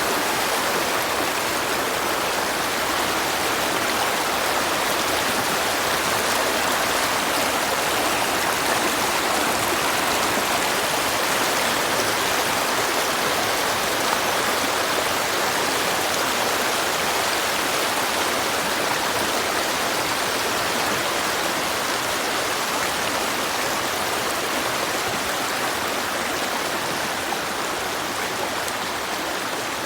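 Creek water flowing steadily, an even rushing sound that eases off a little near the end.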